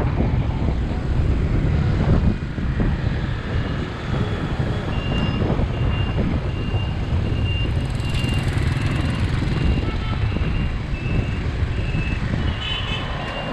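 Wind rumble on the microphone and road noise from a moving bicycle in light traffic. From about three seconds in, a high electronic beep repeats steadily, roughly every two-thirds of a second, like a vehicle's warning beeper.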